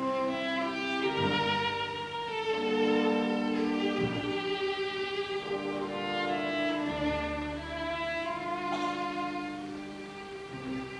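Orchestral ballet music, a bowed-string melody of held notes that moves in pitch every second or so over lower sustained chords.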